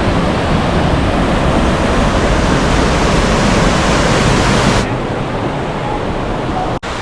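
Steady loud roar of rushing water. About two-thirds of the way through it turns duller as its hiss drops away, and there is a brief break near the end.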